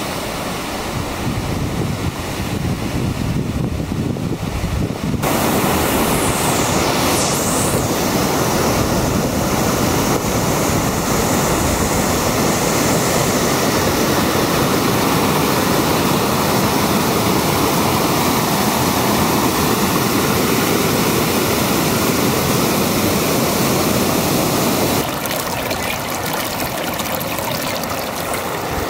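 Water rushing over a rocky river cascade, a loud, even rush. For the first five seconds or so it is quieter, mostly wind buffeting the microphone, and it eases a little near the end.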